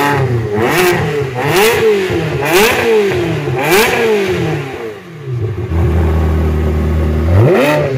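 Ferrari 360 Spider's 3.6-litre V8 revved through its exhaust in four quick blips, the pitch rising and falling each time. It drops back to a steady idle, then is blipped once more near the end.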